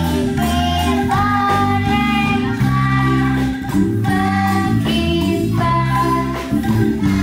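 Young children singing a song together over instrumental accompaniment with a prominent bass line.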